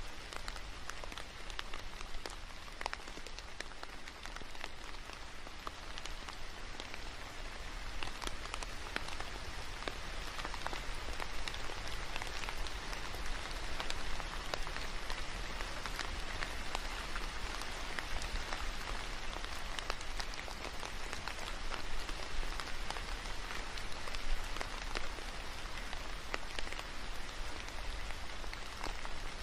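Steady rain falling, a constant hiss dotted with many small drop ticks.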